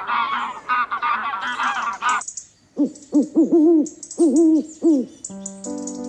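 A flock of young geese calling and chattering for about two seconds. After a short gap comes a run of owl hoots, about five, each rising and falling in pitch, with a high sparkly chime over them. Steady music notes come in near the end.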